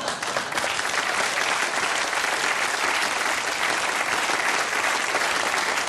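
Studio audience applauding steadily after a punchline, a dense patter of many hands clapping.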